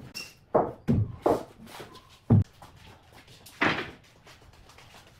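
Wooden knocks and clunks, about five at irregular intervals over the first four seconds, as wooden cabinet parts are handled; the last is a longer, rougher one.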